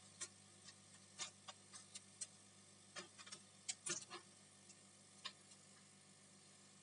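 Faint, irregular small clicks and taps of a screwdriver and laptop parts (the cooling fan and motherboard) being handled, busiest about halfway through, over a low steady hum.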